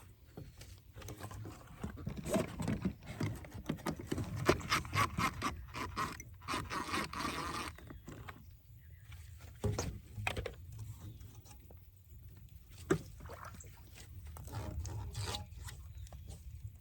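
Pool hose and its plastic fittings being worked loose by hand: irregular scraping and rubbing with scattered clicks, busiest in the first half.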